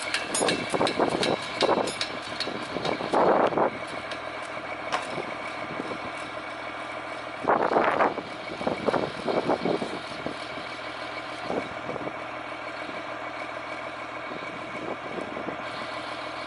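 Snowcat's diesel engine running steadily, a constant hum of several tones, with louder noisy surges about three and eight seconds in.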